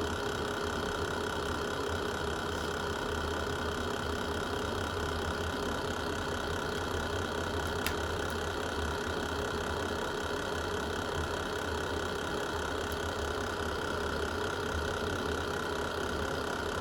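Fireplace ambience: a steady low rumble with a faint even hum, and a single sharp crackle from the fire about eight seconds in.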